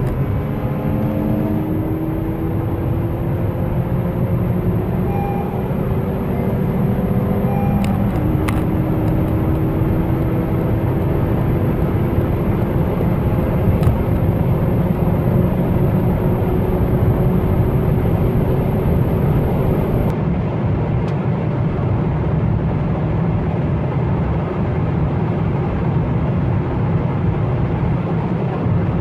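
In-cabin sound of cars accelerating hard from 100 toward 180 km/h: the engine note climbs steadily, drops once at an upshift about eight seconds in, then climbs slowly again under heavy road and wind rumble. A faint high whine cuts off about twenty seconds in, when the Ford Focus 1.6 EcoBoost's run ends, and the Honda Civic 1.6 i-VTEC pulls on alone.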